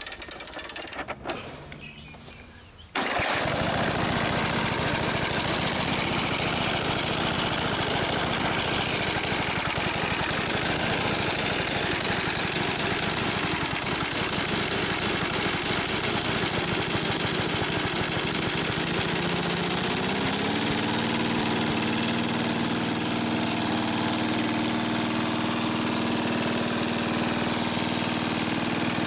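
Victa Ambassador mower's Kirby-Lauson 125cc four-stroke engine running steadily. It comes in abruptly about three seconds in after a fading stretch, and from about twenty seconds in its note settles to a steady pitch.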